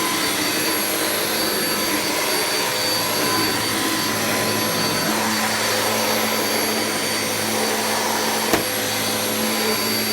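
Hoover Nano Cyclonic (UH20020) upright vacuum cleaner running steadily, very loud, with a single sharp click near the end.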